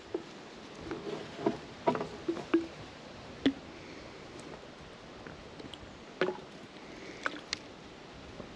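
Sparse, irregular soft clicks and knocks, several in a quick cluster early on and a few more later, from horses and their tack on a trail.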